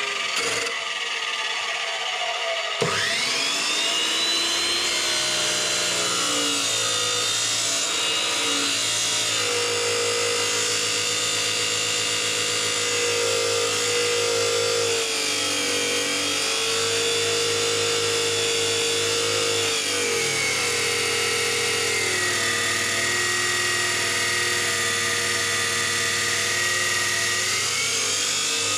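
Electric abrasive cut-off saw (chop saw) starting about three seconds in with a rising whine as the motor spins up, then running steadily while cutting steel. Its pitch drops as the blade is pressed into the cut and rises again near the end.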